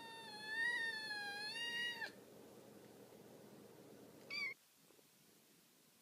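A domestic cat's long, drawn-out meow that ends about two seconds in, followed by a short, higher meow about four seconds in.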